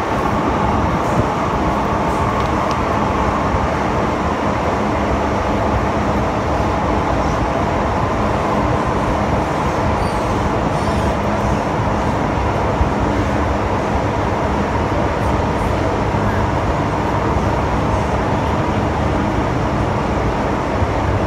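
Metro train in motion heard from inside the passenger carriage: a steady rumble and hiss with a faint steady hum.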